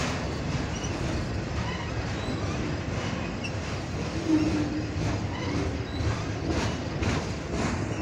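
Double-stack intermodal freight train's container well cars rolling past: a steady rumble of steel wheels on rail with scattered clicks over the joints and a short squeal about halfway through.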